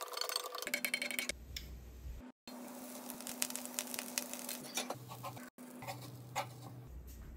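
Wooden spatula stirring and scraping egg fried rice around a Vermicular 28 cm cast iron frying pan: a fast, uneven run of clicks and scrapes, broken twice by a brief gap.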